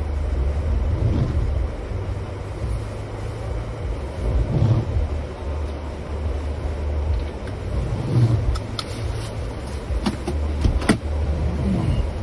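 Jeep Gladiator driving slowly over a rough, muddy dirt trail, heard from inside the cab: a steady low rumble of engine and tyres, with a few sharp clicks and knocks in the second half.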